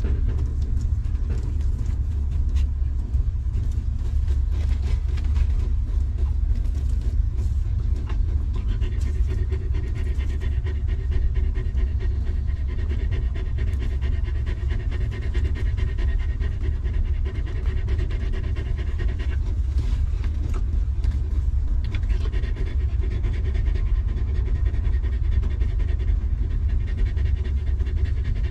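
Mother dog panting steadily and rapidly with her mouth open as she nurses newborn puppies, over a steady low rumble.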